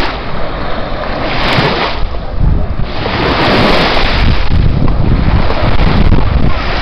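Small waves washing up a sandy shore in a steady surging hiss, with wind buffeting the microphone, heavier from about three seconds in.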